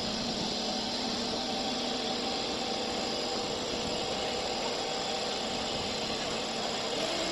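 Sany 80-tonne mobile crane's engine and hydraulics running steadily as it swings a suspended crusher screen box, a dense mechanical noise with a faint steady hum under it.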